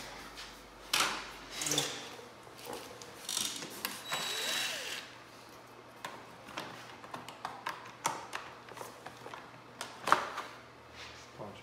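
Plastic motorcycle bodywork rustling and knocking as panels are handled, then a run of small sharp mechanical clicks as screws in the tank shroud are worked with a cordless screwdriver. The loudest is a single sharp click about ten seconds in.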